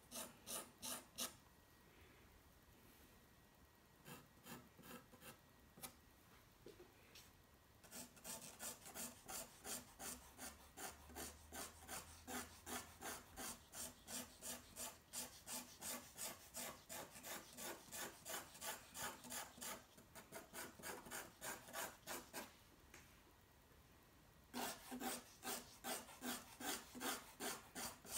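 White pencil scratching on toned drawing paper in quick repeated strokes, about three a second, in several runs broken by short pauses.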